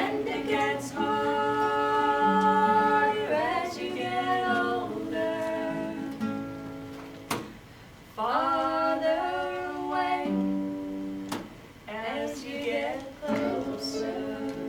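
A song performed live: long held sung notes with acoustic guitar accompaniment.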